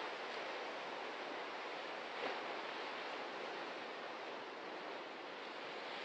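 Ocean surf breaking and washing over a rocky shore: a steady rush of waves, with one brief splash about two seconds in.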